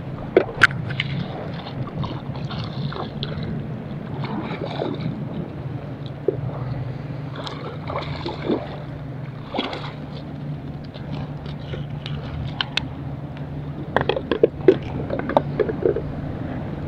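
Choppy water sloshing and slapping against a small boat, with scattered sharp knocks and scrapes over a low steady hum. A cluster of knocks and clatter comes near the end as the landing net is handled.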